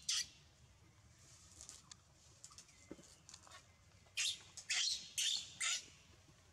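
Baby monkey giving short, high-pitched squeaks: one at the start, then four in quick succession about four seconds in.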